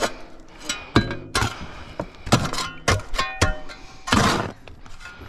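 A string of irregular sharp knocks and clanks, several ringing briefly like struck metal, with a longer scraping noise about four seconds in.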